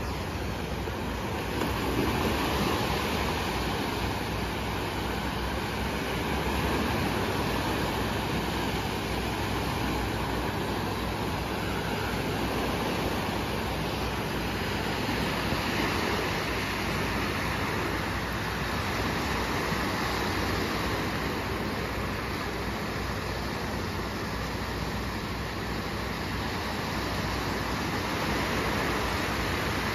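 Small Adriatic waves breaking and washing up the beach: a steady rushing hiss that swells and eases every several seconds.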